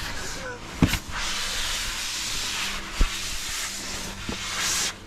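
Clothing scraping and rustling against rock close to the microphone as someone crawls through a tight cave passage, with three dull knocks.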